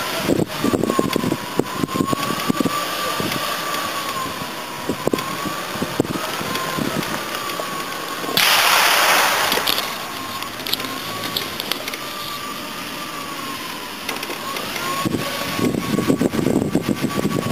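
A vehicle rolling slowly over rough unpaved ground, heard from inside, with irregular crunching and clicking from the tyres and a faint wavering whine. A loud burst of hiss lasts about a second and a half a little past halfway.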